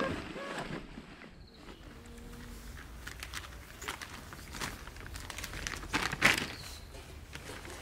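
Scattered rustling and handling sounds of luggage being taken off a parked motorcycle, over faint wind; the loudest rustle comes about six seconds in.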